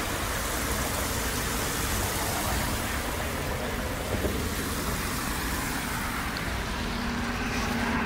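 Steady rushing noise of an outdoor fountain's splashing water, mixed with road traffic.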